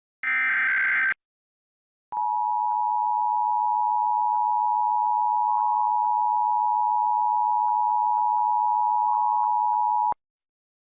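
Emergency Alert System broadcast test: a one-second burst of SAME header data, a harsh digital squawk, then after a short pause the EAS attention signal, a steady two-tone alert (853 and 960 Hz) held for about eight seconds before cutting off abruptly.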